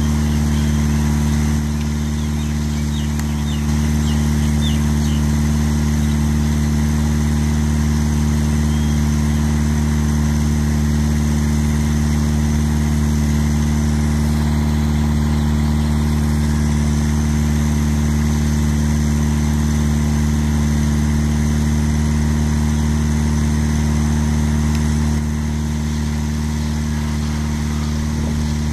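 Steady low hum of an idling engine, unchanging in pitch throughout, with a few faint high chirps about two to three seconds in.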